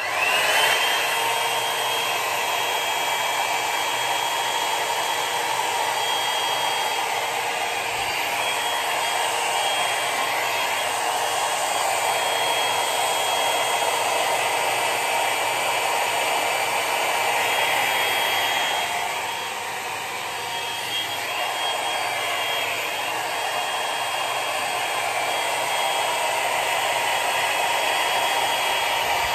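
Enkho hot-air brush (a round drying-and-straightening brush) switching on with a rising motor whine, then blowing steadily as it is worked through damp hair. The level dips briefly about two-thirds of the way through, then comes back.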